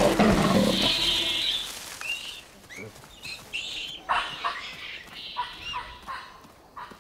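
Wild animals calling: a loud, harsh, drawn-out call in the first second or so, then a scatter of short, high, chirping calls, several to a second at times.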